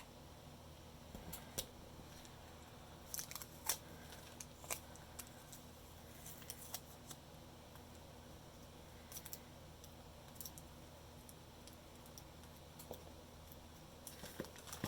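Faint, scattered clicks and crackles of clear Scotch tape being handled and pressed onto a thread spool, over a low steady room hum.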